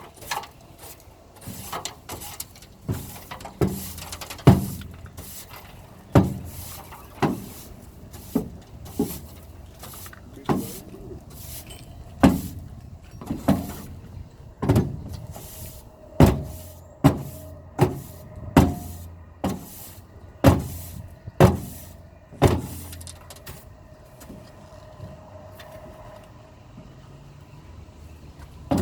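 A long run of sharp knocks and bangs, irregular, about one a second, stopping about three quarters of the way through and leaving a faint steady hum.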